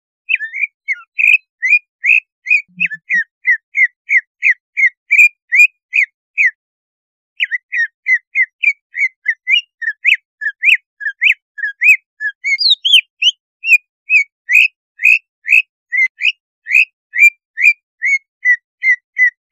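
Green leafbird (cucak ijo) singing a fast, unbroken run of short whistled slurred notes, about three a second, with a brief pause about seven seconds in. It is the kind of fierce song that keepers play to rouse other cucak ijo into aggression and display.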